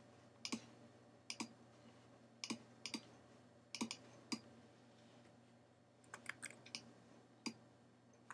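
Faint computer mouse button clicks, about a dozen sharp clicks at irregular intervals, some in quick pairs, with a small cluster about six seconds in, over a faint steady low hum.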